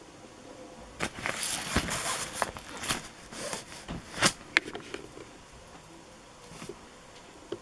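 Clear plastic packaging around a pack of firework rockets crinkling as it is handled, a dense run of crackles with a few sharper clicks lasting about four seconds, then quiet handling noise.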